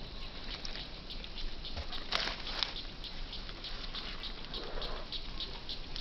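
Dry leaf litter crackling and rustling underfoot: irregular small clicks and crunches, a denser cluster about two seconds in.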